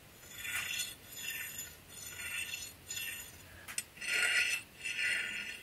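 Mazda rotary apex seals being scraped along their running face in repeated short strokes: four fainter strokes across a smooth factory OEM control seal, then, about four seconds in, two louder strokes across a used iRotary apex seal whose rougher sound reflects its worn, grooved surface.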